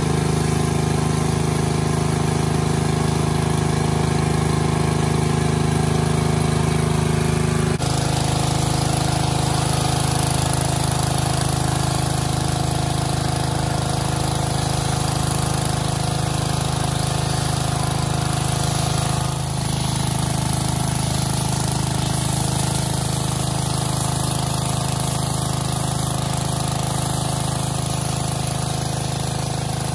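Small gasoline engine of a pressure washer running steadily. Its pitch steps abruptly about eight seconds in and again near twenty seconds.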